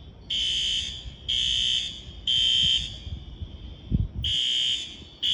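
Fire alarm beeping in the three-beep evacuation pattern: three loud half-second beeps about a second apart, a pause, then three more. A short low thump comes in the pause, about four seconds in.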